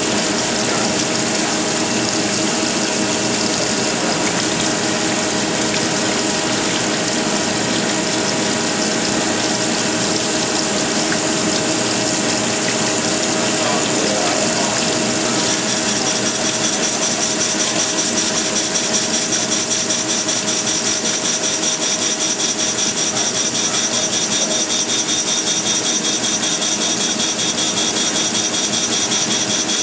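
Wasino Meister V3 CNC surface grinder running, its wheel grinding a workpiece under coolant: a steady hiss and hum with several steady tones. About halfway through, higher whining tones join and the sound grows slightly louder.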